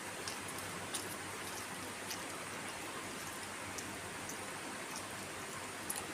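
Faint eating noises: a few soft, short clicks over a steady hiss.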